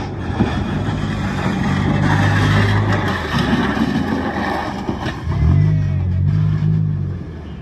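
Slammed Honda Accord sedan pulling away slowly, its engine revving up in pulls and easing off about three seconds in, then revving again about five and a half seconds in. A steady rasp of the lowered body scraping on the road runs under the engine through the first half.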